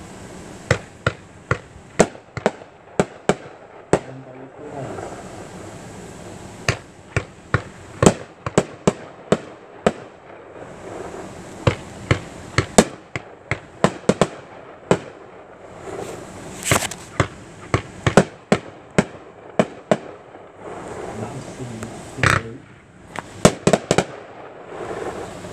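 Magnus Desert Rose 25-shot consumer fireworks cake firing: a long, irregular series of sharp pops and bangs as the tubes launch their shots and the shells burst, often two or three in quick succession.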